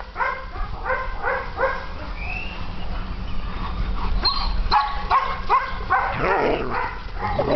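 German Shepherd dogs barking and yipping in rough play: a run of short, evenly spaced yips at the start and another from about five seconds in, with a louder, rougher stretch near the end.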